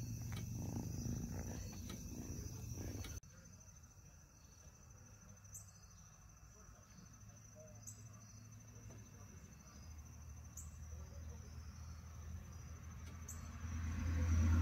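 A cat purring close to the microphone for about the first three seconds, cut off abruptly. After that comes a quieter outdoor background with a steady high insect-like buzz, and a low rumble builds near the end.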